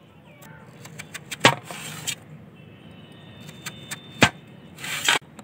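Kitchen knife slicing through a raw peeled potato on a steel tray, the blade clicking sharply against the metal as each slice is cut through: two loud clicks among fainter ones.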